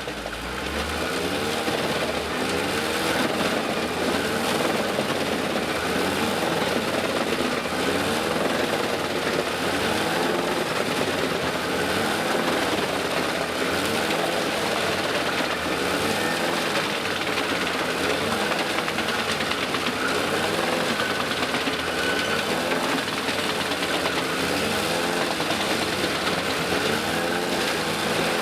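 Tractor-driven Gandini wood chipper running steadily while chipping wood, its hum rising and falling in pitch about every two seconds as the load on the drive changes.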